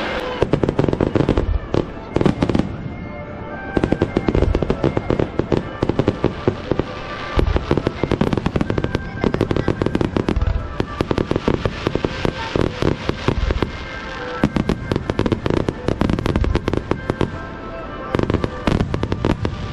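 Fireworks display: a continuous barrage of aerial shell bursts and crackling, dozens of sharp reports in quick succession with a few short lulls.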